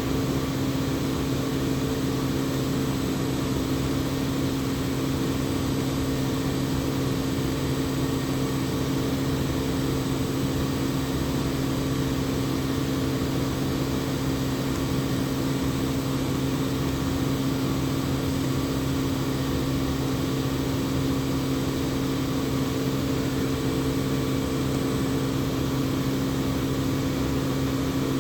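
Industrial air compressor running with a steady, even hum.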